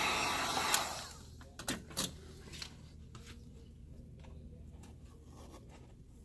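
A heat gun blowing with a steady hiss, shut off with a click about a second in. After it come a few light clicks and taps of small tools on the iPad.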